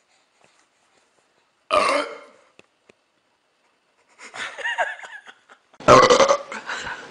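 A person burping: a sudden loud burp about two seconds in, then another, weaker warbling burp sound around four seconds, and a louder burst starting near the end.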